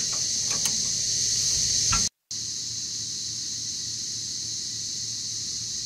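Steady high-pitched insect drone. A few faint clicks in the first two seconds come from hands working a hose fitting loose inside a hydraulic tank.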